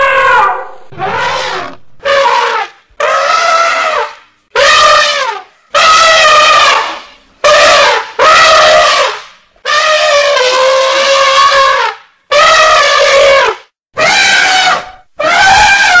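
Elephant trumpeting: about a dozen loud trumpet calls in a row, each roughly a second long with short pauses between, several dropping in pitch as they end.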